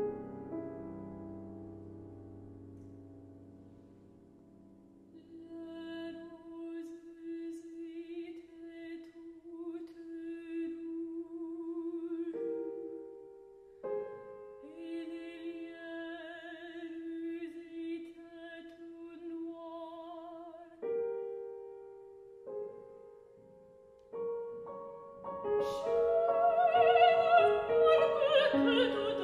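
Soprano singing a French art song with Steinway grand piano accompaniment. A piano chord dies away, then the voice enters softly with vibrato about five seconds in over sparse piano chords, and both grow louder near the end.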